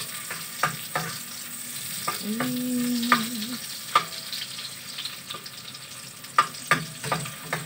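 Garlic and onion sizzling as they sauté in oil in a wok on a gas burner, with a utensil stirring and clicking against the pan at irregular intervals. A brief low tone sounds about two seconds in.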